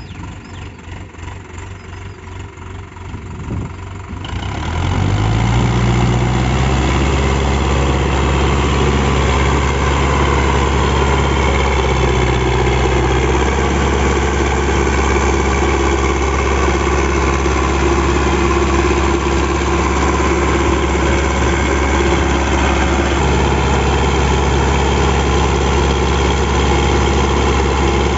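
Sonalika DI 750 III RX tractor's diesel engine ticking over, then revving up about four seconds in and held at high revs. It is working hard under load, dragging a trailer through deep, wet mud.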